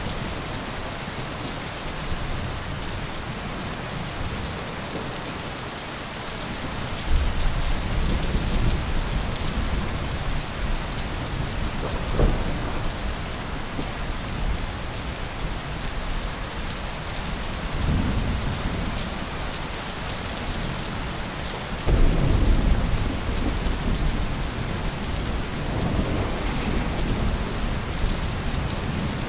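Steady rain with rolling thunder. Low rumbles come in about a quarter of the way through, a short sharp crack of thunder near the middle, and the loudest rumble about three-quarters through.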